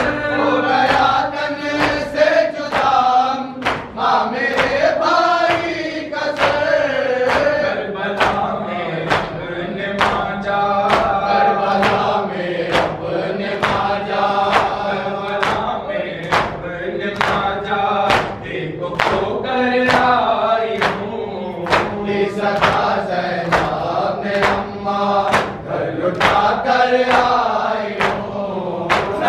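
A group of men chanting a mourning noha together, with rhythmic chest-beating (matam) slaps landing on a steady, even beat under the singing.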